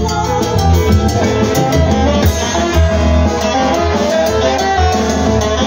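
Live band playing Latin dance music: electric bass and a steady beat on drum kit and timbales, with saxophones.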